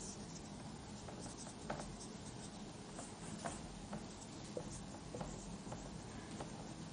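Marker pen writing on a whiteboard: a scatter of short, quiet strokes and taps as words are written.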